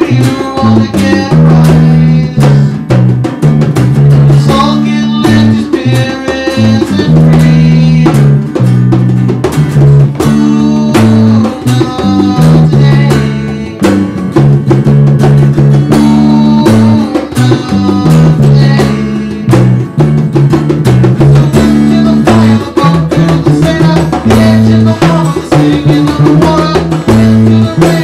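A small band playing an acoustic rock song: strummed acoustic guitar, electric bass and a hand drum struck with bare hands, with a young male voice singing.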